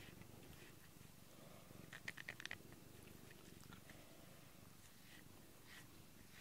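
Domestic tabby cat purring faintly and steadily while being stroked. There is a quick run of small clicks about two seconds in.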